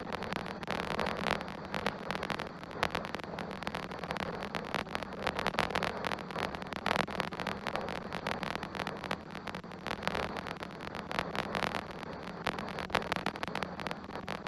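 Strong wind buffeting an outdoor camera microphone: a gusty rushing noise with many crackles and pops.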